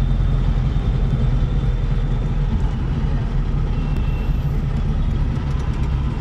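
Taxi engine and road noise heard from inside the cabin while driving: a steady low rumble.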